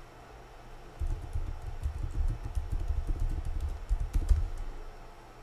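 Typing on a computer keyboard: a quick run of key presses starting about a second in and stopping shortly before the end.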